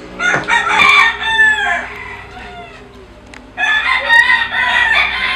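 A rooster crowing loudly twice, each crow lasting about two seconds, the second starting about three and a half seconds in, over a faint steady hum.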